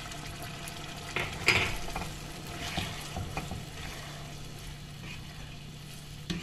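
Wooden spatula stirring and scraping chicken in a yogurt sauce around a nonstick pan, with a light sizzle, over a steady low hum. Several irregular scrapes, the loudest about a second and a half in.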